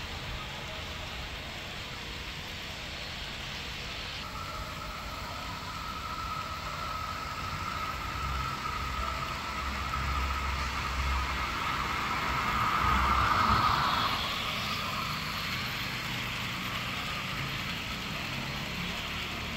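HO-scale model train running on the layout, its wheels rolling on the track with a steady hiss. The model EMD GT26CW diesel locomotive's motor whine sets in and grows louder as it comes close, then drops away about two-thirds of the way through.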